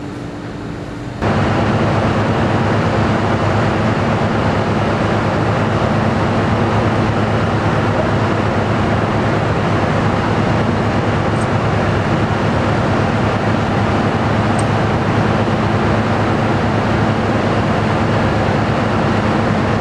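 Heavy truck engine running steadily, a loud even rumble with a low hum, cutting in abruptly about a second in.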